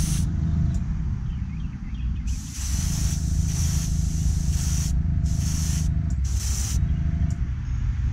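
Airbrush hissing compressed air in several short bursts, each half a second to a second long, over a steady low hum of a running air compressor.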